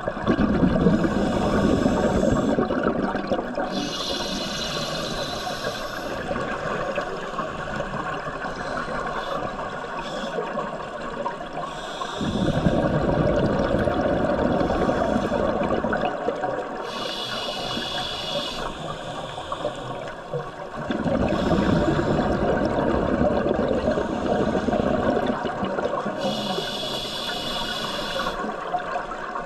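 Scuba diver breathing through a regulator underwater, in a slow cycle of roughly ten seconds. Each breath is a short hissing inhale through the regulator, then a longer burble of exhaled bubbles. Three bubble bursts come: at the start, about twelve seconds in, and about twenty-one seconds in.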